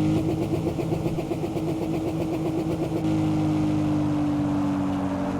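Engine sound effect: a steady pitched hum with rapid, even pulsing for about the first three seconds, then a smooth, continuous tone that eases slightly lower in pitch.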